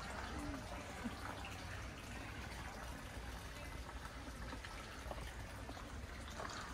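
Steady trickling water.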